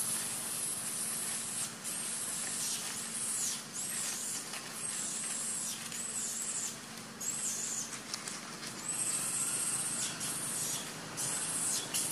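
Shrill, steady high-pitched buzzing of a forest insect chorus, with repeated arching calls about a second apart in the middle.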